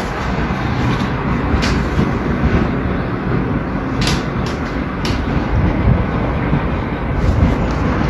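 Strong gale wind during a dust storm, heard from behind a window as a loud, steady, dull rumble, with a few sharp clicks.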